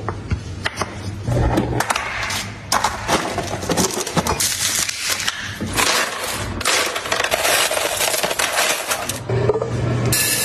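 Clattering and clinking of hard objects being handled, with many sharp knocks and some scraping.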